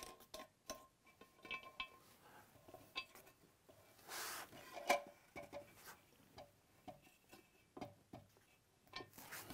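Faint clicks, scrapes and small knocks of a plastic fill-valve nut being turned by hand on its threaded inlet against the underside of a ceramic toilet cistern, with a sharper knock about five seconds in.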